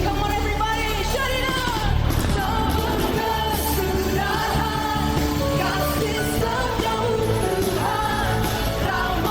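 Worship song sung over band accompaniment, with a steady low bass underneath.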